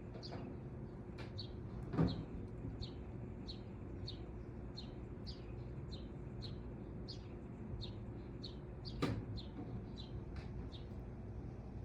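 Thin, high chirps repeating evenly about three every two seconds, each sliding slightly downward, over a low steady hum. Two soft knocks come about two seconds in and again near nine seconds.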